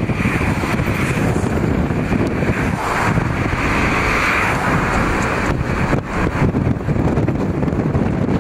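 Steady road, engine and wind noise of a moving car, heard from inside the cabin, swelling briefly about three to four seconds in as an oncoming car passes close by.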